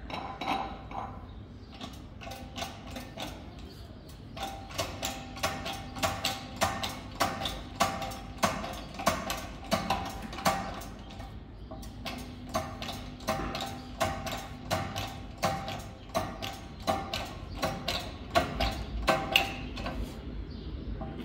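Mehak 15-ton hand-pumped hydraulic shop press being worked: a regular clicking with a short metallic ring, about two strokes a second, pausing briefly midway, as the ram presses down on a bearing in a brake drum.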